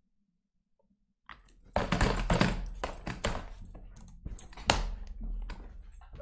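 A man laughing hard in a small room, with thumps and knocks as he moves about and bumps his chair and desk. It starts about a second in, after a near-silent gap.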